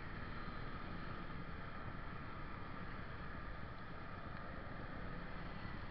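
Motorcycle engine running at low revs while riding slowly, under steady wind rumble on the microphone.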